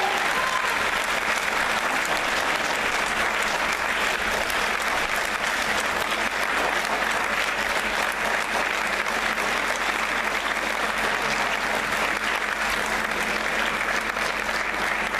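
Many people applauding steadily: sustained clapping that keeps an even level throughout.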